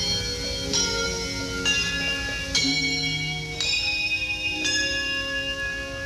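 English handbells rung in a slow melody, a new group of bells struck together about once a second and each left ringing on under the next.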